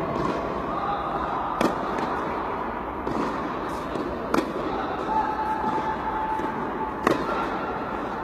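Tennis ball struck by a racket during stroke practice: three sharp pops about every two and a half to three seconds, with fainter knocks between them, over steady background noise.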